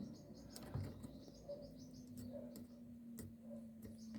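Quiet background with a few faint, scattered small clicks, short distant bird chirps and a faint steady low hum.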